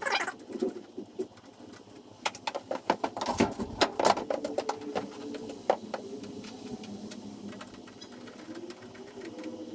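Irregular clicks and knocks of a motorcycle seat being lifted off and set back onto a Harley-Davidson Dyna Street Bob, busiest about three and a half to four seconds in.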